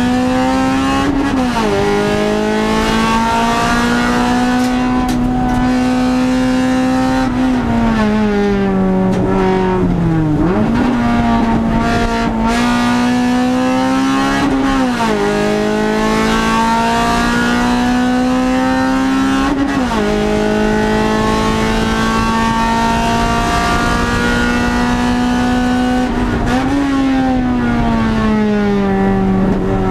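Racing car's engine heard from inside its stripped cabin, run hard at high revs around a circuit. Its pitch climbs slowly through each gear and drops sharply at the gear changes, about a second in and again about fifteen seconds in. There is a longer fall from about eight to ten seconds in, off the throttle, before the revs rise again, and another fall near the end.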